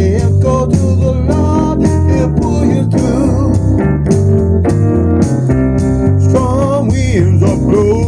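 Music: a blues-style song with a steady drum beat, a heavy bass line and guitar.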